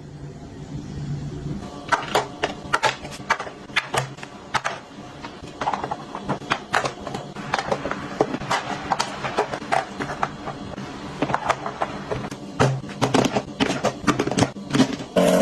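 Many sharp, irregular clicks and knocks, several a second, like small hard objects being handled and set down, over quiet background music.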